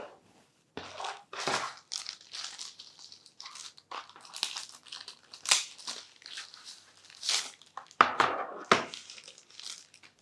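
Packaging crinkling and rustling in bursts as a keyboard box is unpacked by hand.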